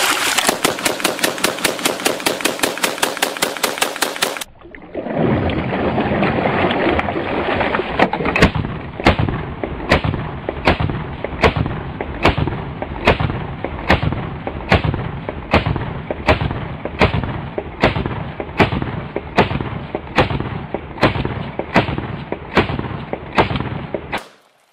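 AA-12 fully automatic 12-gauge shotgun firing, fresh out of about ten minutes under water and still cycling. A rapid string of shots runs for about four seconds, breaks off briefly, then a second long, regular string of shots runs until just before the end.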